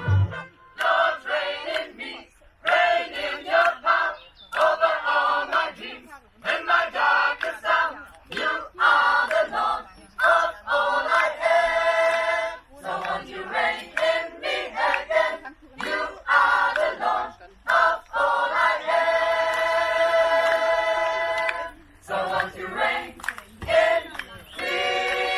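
A mixed choir of men and women singing a cappella, in phrases of a second or two with short breaks between them.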